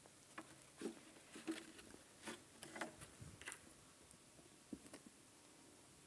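Near silence with faint scattered rustles and light taps, mostly in the first three and a half seconds, from a puppet and a flat board prop being handled.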